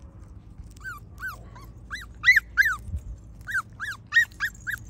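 Miniature Schnoodle puppies whining and crying: a string of about a dozen short, high whines, each rising and falling, beginning about a second in.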